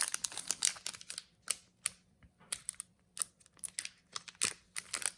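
Foil wrapper of a Pokémon booster pack crinkling and crackling in the hands as it is worked open, in quick irregular clicks, with a quieter spell about two to three seconds in.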